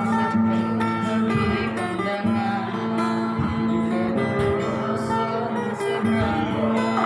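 Acoustic guitar playing an instrumental passage of a Batanghari Sembilan folk song, plucked notes ringing over a sustained low note.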